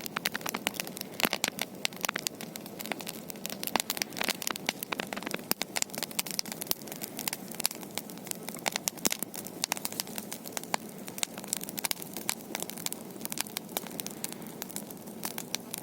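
Wood campfire burning, with frequent irregular sharp crackles over a steady low rush of flame.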